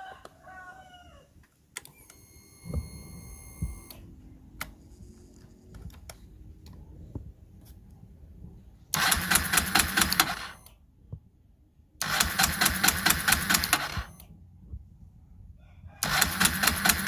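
Fuel injector from a Kawasaki D-Tracker 125 being pulse-fired on a spray test after cleaning, giving three bursts of fast, even clicking, each lasting about two seconds.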